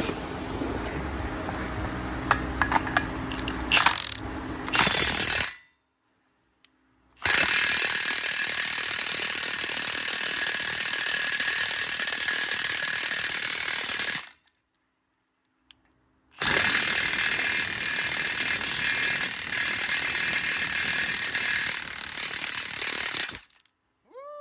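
Milwaukee M18 cordless impact wrench with a 36 mm socket hammering on a truck's front-hub spindle nut to break it loose. It runs in two long bursts of about seven seconds each with a pause between, after a few seconds of clicks and clatter as the socket is fitted.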